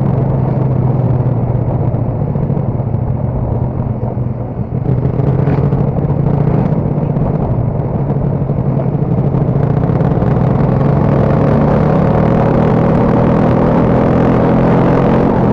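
Motorcycle engine running steadily while riding, under a continuous rush of noise; it eases briefly about four to five seconds in, then its pitch climbs gently as the bike speeds up.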